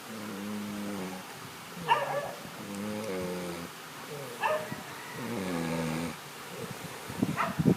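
A sleeping person snoring: three breaths, each a short sharp snort on the in-breath followed by a drawn-out, slightly falling pitched whine on the out-breath, about every two and a half seconds.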